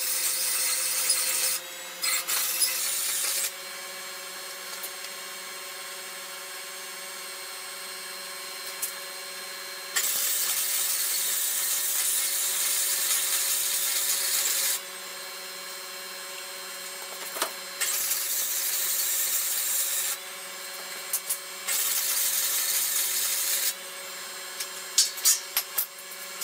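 Wire-feed welding arc crackling and hissing in five separate runs of about one to five seconds each, with pauses between beads, over a steady hum. Near the end a few sharp clicks come from a steel C-clamp being adjusted on the frame.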